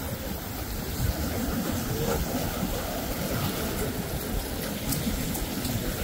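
Ocean surf washing in a steady rush, with a deep rumble underneath.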